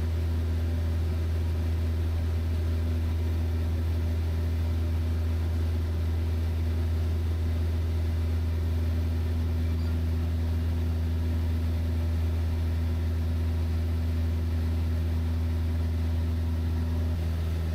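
Van's RV-7 light aircraft's piston engine and propeller droning steadily in flight, a constant low hum with no change in pitch or level.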